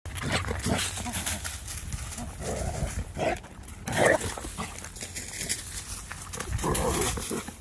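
A young dog running zoomies through dry leaf litter, its paws crunching and scuffling the leaves in quick irregular strokes, with the dog's breathing and grunts now and then. A steady low rumble runs underneath.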